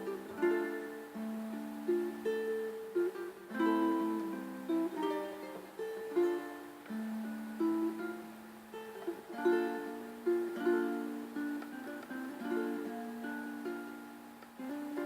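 Instrumental music: a plucked string instrument playing a melody with chords, note after note, with no bass underneath.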